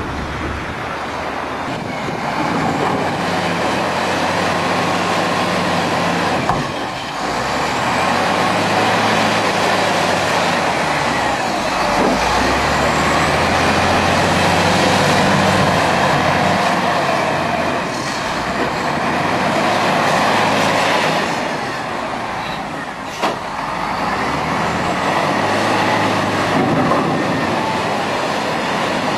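Heavy diesel construction machinery running steadily, the engine note shifting up and down as the machines work, with a short sharp knock about 23 seconds in.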